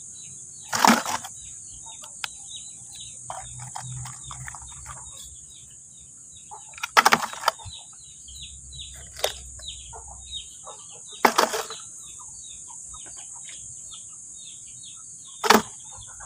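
Steady high-pitched insect drone with small birds chirping over and over. Four short, loud knocks or clatters break in: about a second in, midway, about two-thirds through and near the end.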